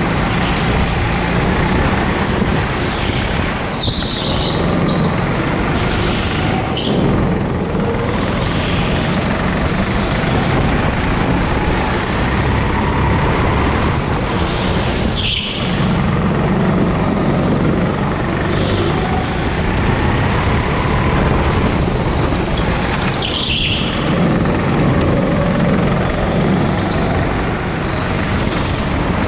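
Go-kart driving at speed, its engine and running noise steady and loud throughout, with brief high-pitched squeals a few times.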